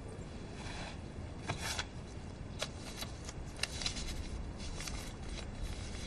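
Faint, scattered crackles and rustles of a folded paper note being handled and opened.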